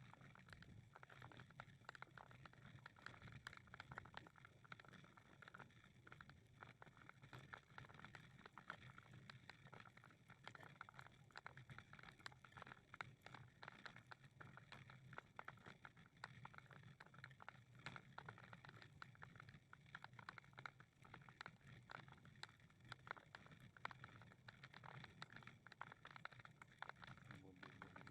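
Faint footsteps and small irregular clicks on a walking path, over a low steady hum.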